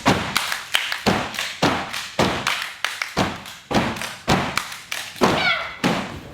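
Rhythmic percussion: a steady run of sharp thumps and slaps, about three a second.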